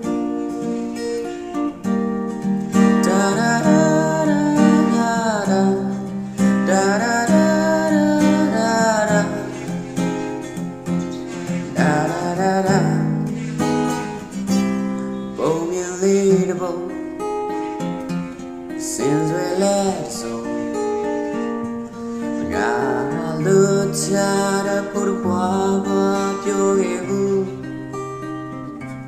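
Steel-string acoustic guitar with a capo, playing an instrumental passage of chords with melody notes over them.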